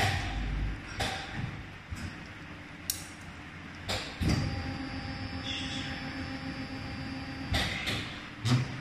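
CLF-300 servo-driven injection molding machine running: a steady mechanical hum, with a set of steady whining tones setting in about four seconds in, and a series of sharp clunks and clicks from its moving parts, about one a second at first and several close together near the end.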